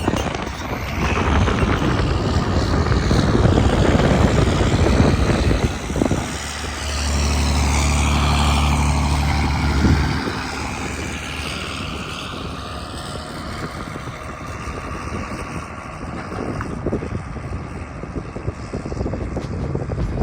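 A car engine running hard with a continuous rushing noise. For about three seconds in the middle it holds one steady high-rev note, then falls back.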